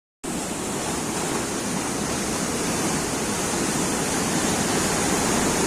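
Heavy sea surf: big waves breaking and washing in, a steady loud rush of noise.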